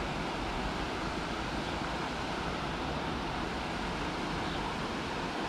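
River water rushing steadily, an even hiss with a low rumble underneath.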